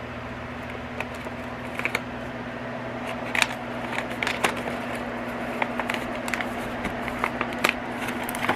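Packaging and small items being handled: scattered clicks and crinkling rustles, over a steady low hum.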